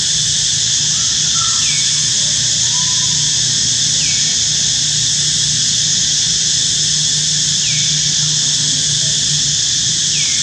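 A steady, high-pitched insect drone is the loudest sound throughout. Over it, a short falling chirp comes four times, two to four seconds apart.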